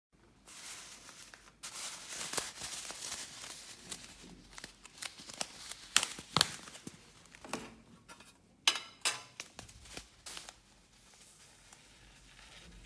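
Faint handling noises: rustling and crinkling with scattered sharp clicks and taps, which stop about ten and a half seconds in.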